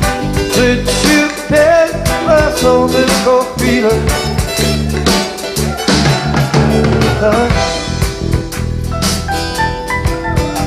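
Live acoustic band music in an instrumental passage of a rock ballad: acoustic guitars over a steady drum beat, with no singing.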